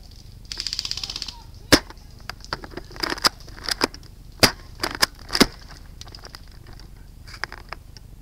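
Airsoft guns firing: a rapid full-auto burst lasting under a second, then a series of sharp, separate cracks over the next few seconds.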